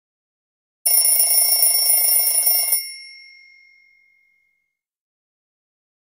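Nokia C3-00 stock clock-alert/message tone: a rapid bell-like ringing that starts about a second in, lasts about two seconds, then rings out and fades.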